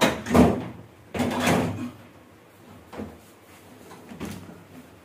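Knocks and scrapes of a Hindware kitchen chimney hood's metal and glass body being shifted onto its wall mounting, two louder bumps in the first two seconds, then a couple of lighter knocks.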